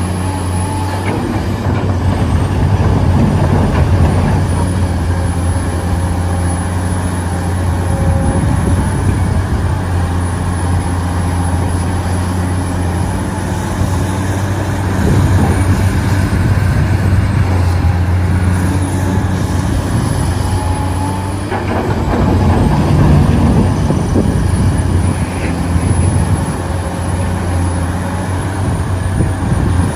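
Radio-controlled excavator's electric motors running steadily, a constant low hum under a thin high whine that dips and rises several times as the machine works.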